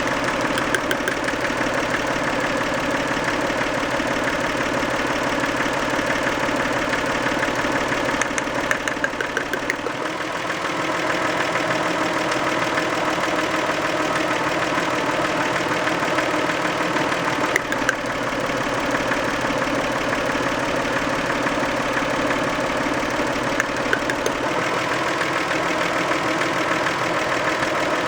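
Toyota 2VZ-FE 2.5-litre V6 of a 1990 Camry idling warm, with a steady rhythmic knock running through the engine note. The owner could not pin down the knock and guesses at varnish stuck on a valve shim or bucket rather than worn rod or crank bearings.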